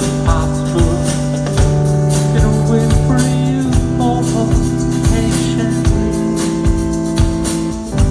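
Live band playing a slow, steady indie-rock song: long held chords that change every second or two over an even drum beat, heard as an audience recording.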